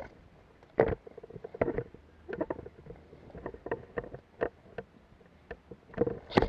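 Footsteps crunching through dry leaves and woodland undergrowth, with twigs snapping and brush rustling against the walker in an irregular rhythm; the loudest crack comes about a second in.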